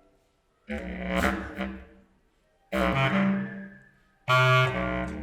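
A clarinet trio playing low, separate phrases: three abrupt entries about two seconds apart. The first two swell briefly and die away into silence, and the third, the loudest, is held near the end.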